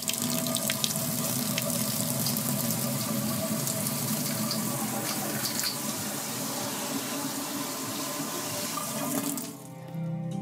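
Brewing water running steadily from a tap into a vessel, a constant rush that cuts off about nine and a half seconds in.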